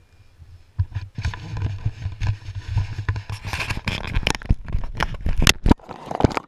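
Skis scraping and chattering over tracked, chopped-up snow on a fast run, with wind rushing over the camera microphone as a low rumble underneath. Sharp scrapes and clicks come thicker in the second half.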